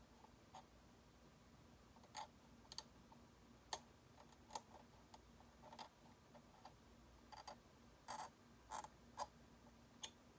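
Faint, irregular clicks and light scrapes of a McCall 13/14 curette working along the plastic teeth of a typodont, about a dozen strokes at uneven intervals, several close together near the end.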